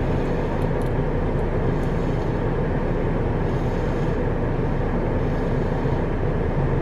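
Steady road and engine noise heard from inside a moving car's cabin.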